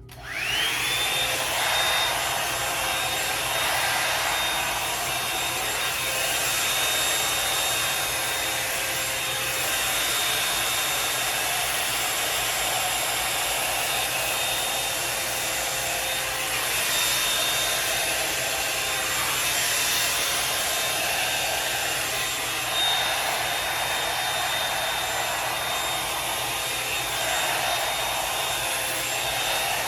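Revlon One-Step hair dryer and styler brush switched on: its motor whine climbs to a steady high pitch within about a second, then runs on steadily with a loud rush of air.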